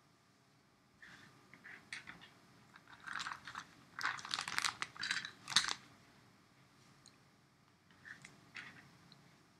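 Irregular bursts of crunching and crackling, loudest about four to six seconds in, with a shorter burst near the end.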